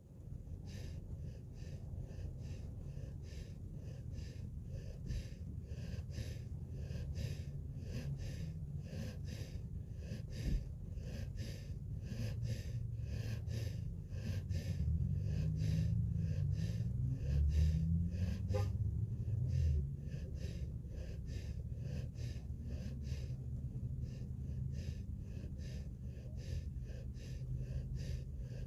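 Puppy snoring in its sleep: short, quick breaths in a steady rhythm over a low rumble that grows louder midway.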